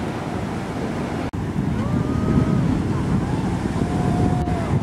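Ocean surf breaking, with wind buffeting the microphone in a heavy, low rumble. After a sudden cut about a second in, distant voices call out in several drawn-out hoots over the surf.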